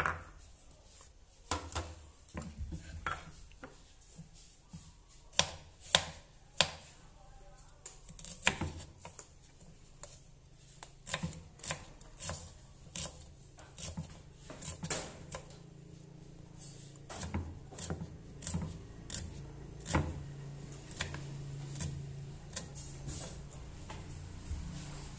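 Kitchen knife cutting a shallot on a round wooden chopping board: irregular sharp taps of the blade on the wood, a few much louder than the rest.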